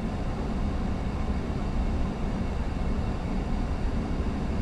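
Steady in-flight noise on the flight deck of an Airbus A340-600: an even rush of air with a heavy low rumble, unchanging throughout.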